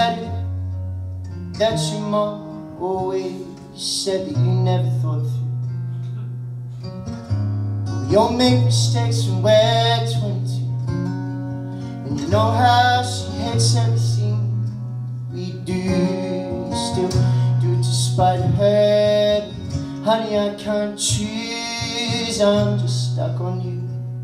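Solo male vocalist singing a song live to his own acoustic guitar accompaniment, with picked chords over held bass notes.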